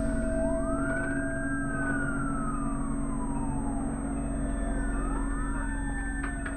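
Emergency vehicle sirens wailing: several overlapping wails, each rising and then falling slowly, over a steady low hum.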